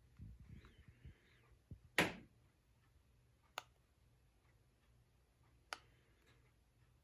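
Faint ticking of a wooden clock, a dull knock about two seconds in, and two sharp clicks later on, from buttons pressed on the LED lamp's remote control.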